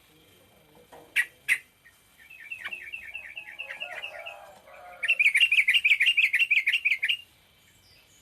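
Yellow-vented bulbul (trucukan) singing: two sharp call notes, then a string of short chattering notes, then a loud fast trill of about nine notes a second lasting some two seconds. The trill is the short rapid 'ropel' song.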